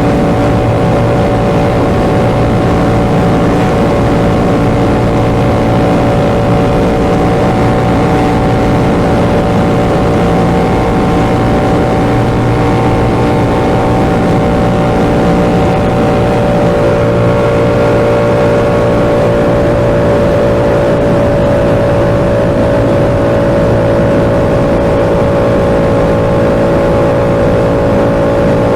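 Yamaha R7's 689 cc parallel-twin engine through an SC-Project exhaust, running at a steady cruise, its pitch creeping up slightly a little past halfway.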